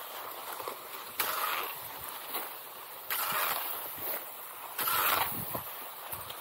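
Cross-country skis gliding in classic tracks on packed snow: a scraping swish that recurs about every two seconds with each stride, with lighter clicks and crunches between.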